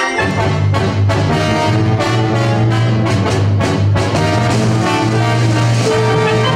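Background music with brass over a held low bass note and regular drum hits; the bass comes in right at the start.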